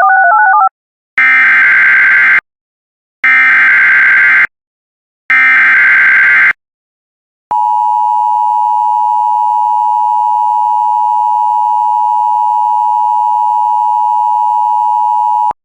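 Emergency Alert System tones, opening with a brief warbling tone. Then come the three bursts of the digital SAME header, each a little over a second long with short gaps between. Last comes the loud, steady two-tone EAS attention signal, held about eight seconds and cutting off sharply, which marks the start of an emergency warning broadcast.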